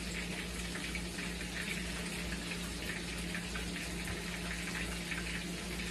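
Bluegill fillets frying in hot grease: a steady sizzle over a low, steady hum.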